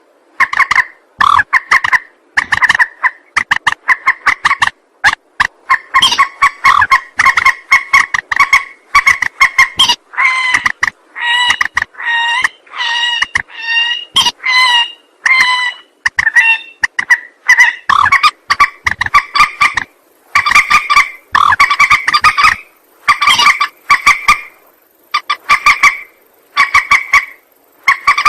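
Calls of a mandar (an Indonesian name for rails such as swamphens and moorhens), played as a bird-lure recording: a long, rapid series of short, clipped notes, each with a clear pitch, repeating several times a second in loose bursts.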